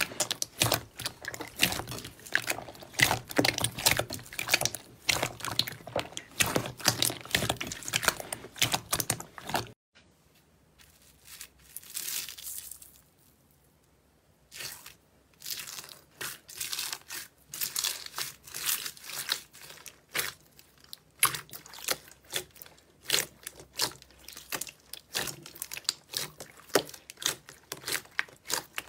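Slime being kneaded and squeezed by hand, a dense run of sticky clicks and crackling pops. About ten seconds in it falls almost quiet for a few seconds. Sparser, sharper clicks and crackles follow as a finger presses into slime studded with foam beads and hands squeeze a glossy slime.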